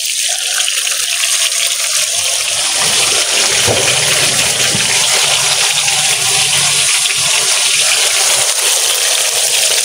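Banana fritters deep-frying in hot oil in a wok, a loud steady sizzle that builds during the first second.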